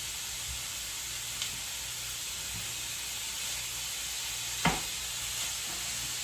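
Food sizzling steadily in a frying pan, with a faint tap about a second and a half in and a sharper knock of a utensil against the pan roughly three-quarters of the way through.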